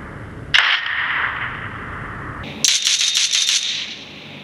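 Video-game gunfire: a single sharp shot about half a second in, then a burst of rapid automatic fire, about nine shots a second, lasting about a second.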